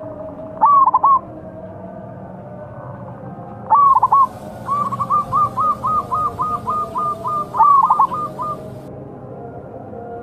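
Zebra doves (perkutut) cooing: short, loud, rolling phrases about a second in, near four seconds and near eight seconds, with a run of quick, even coo notes, about three or four a second, from about five to nine seconds.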